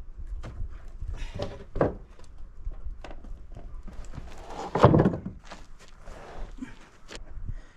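Freshly sawn elm boards being handled and stacked: irregular wooden knocks and thunks with a couple of short scrapes, and one heavy thud about five seconds in.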